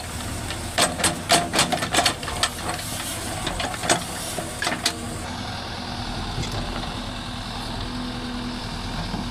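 JCB 3DX backhoe loader's diesel engine running steadily as the backhoe arm works, with a quick run of sharp knocks and clanks during the first half.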